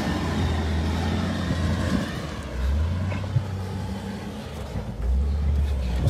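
Wheel loader's diesel engine running under load as it pushes earth and brush, its pitch dropping and rising a couple of times.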